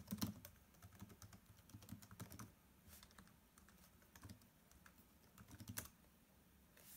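Typing on a 17-inch PowerBook G4's built-in laptop keyboard: faint, quick key clicks in short bursts with brief pauses between.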